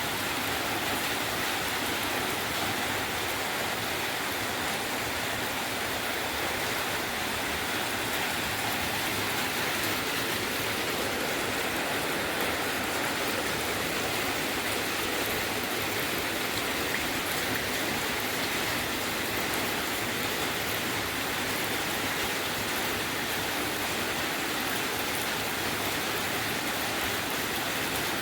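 Rain falling steadily, an even hiss of drops that does not change.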